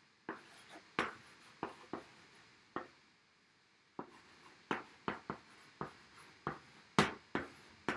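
White chalk writing on a chalkboard: a run of short taps and scratchy strokes as letters are written, with a pause of about a second partway through before the strokes resume.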